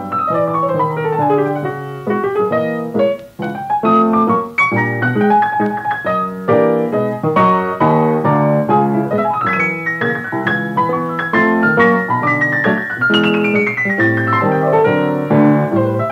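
Background instrumental piano music, a lively run of notes with falling runs near the start and again near the end.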